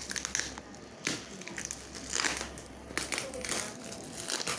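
Plastic film and packing tape on a parcel crinkling and rustling as the wrapping is cut with scissors and pulled at by hand, in bursts about once a second.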